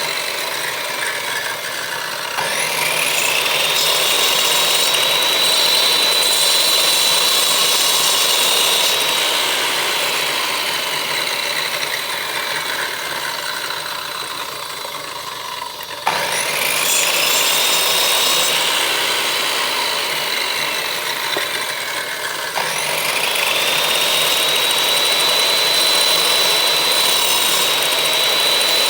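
Electric power tool's motor spinning up with a rising whine, running at a steady high pitch, then slowly winding down. It starts up again with a click about 16 seconds in, and once more about 22 seconds in.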